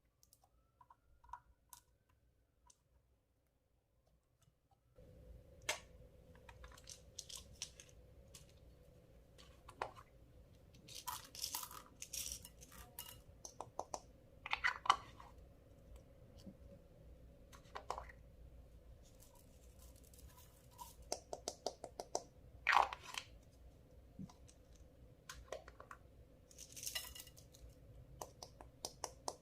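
Clear slime being pressed, stretched and folded by hand, giving many short, irregular sticky clicks, crackles and pops, some in quick runs. It is nearly silent for the first few seconds, then a faint steady hum comes in under the clicks.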